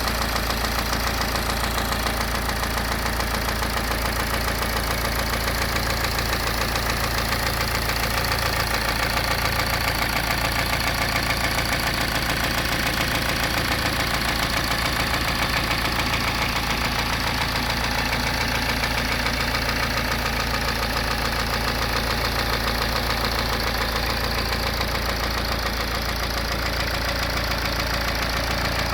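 BMW N47 four-cylinder diesel engine running steadily with a constant knocking from inside, the sign of a failed bottom end (worn crankshaft or connecting-rod bearings), as the owner judges it.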